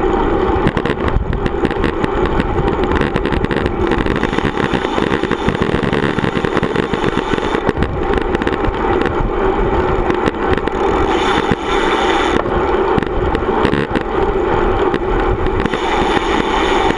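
Steady rushing wind buffeting the microphone of a bicycle-mounted action camera, mixed with tyre and road rumble from riding road bikes.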